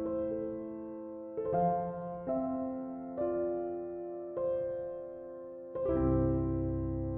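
Soft background piano music: slow, sustained notes struck about once a second, with a deeper bass chord coming in near the end.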